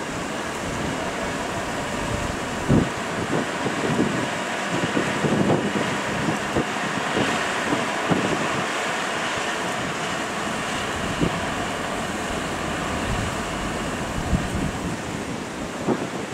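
A truck-mounted crane's engine running, under a steady rush of wind on the microphone, with occasional short knocks.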